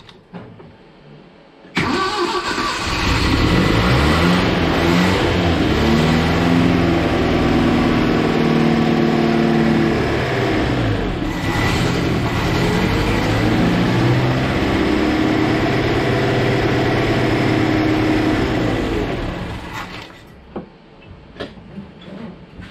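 Datsun L16 four-cylinder engine, on a new Weber carburettor, starting up about two seconds in after years without running. It runs for about eighteen seconds, the revs rising and falling on a little throttle because it will not idle, then dies away. An exhaust leak is heard where the pipe is not yet welded to the muffler; the owner puts the lack of idle down to a vacuum leak or to the cold engine with its choke not hooked up.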